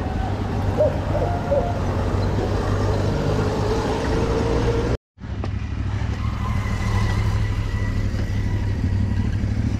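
Steady low rumbling noise, cut off completely for a fraction of a second about halfway through before it resumes.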